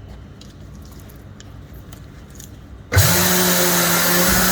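Coats Rim Clamp 80X tire changer's turntable motor switching on about three seconds in, spinning up quickly to a loud, steady hum. Before it starts there are only a few faint clicks.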